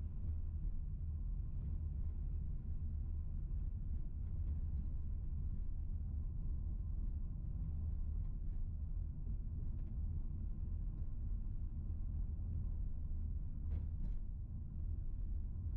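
Steady low rumble of a car driving slowly on a paved street, engine and road noise, with two faint ticks near the end.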